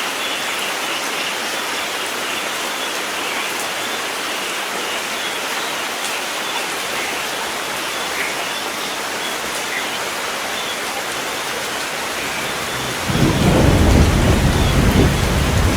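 Steady rain falling. About thirteen seconds in, a loud, low rumble of thunder breaks in suddenly and keeps rolling over the rain.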